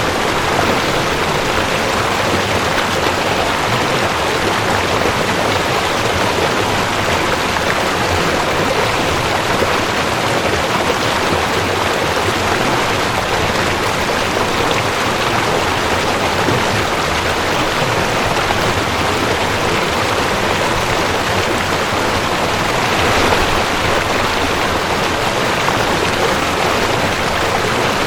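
Mountain stream rushing over rocks: a steady, even rush of water with a slight swell about twenty-three seconds in.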